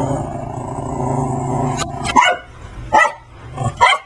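A low drawn-out growl for about two seconds, then a Brussels griffon barks three times in quick succession, short sharp barks under a second apart.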